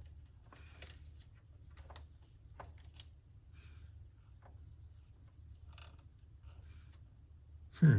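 Small clicks and rustles of the cassette data recorder's plastic parts and gears being handled, with a sharper click about three seconds in and a heavy bump near the end, over a low steady hum.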